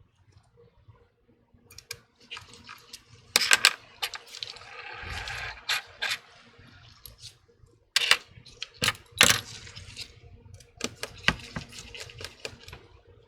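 Small tools and phone parts clicking and tapping against the handset and work surface during iPhone disassembly: a scatter of sharp clicks, with a rustling stretch near the middle.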